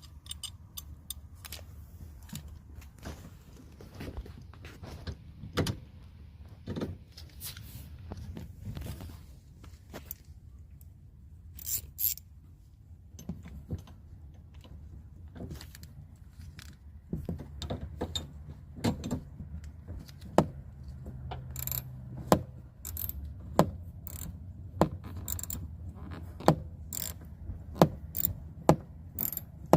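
Hand tools and metal handle parts clicking and clinking against the door hardware while a new metal inside door handle is fitted, with scattered sharp clicks at first and more frequent ones in the second half, over a low steady hum.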